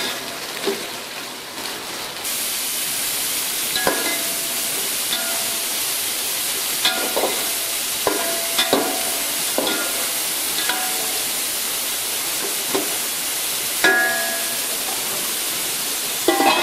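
Sliced onions sizzling in hot ghee in a metal pot, with a perforated metal slotted spoon scraping and clinking against the pot as they are stirred. The sizzle grows louder about two seconds in, and the spoon strikes come every second or two.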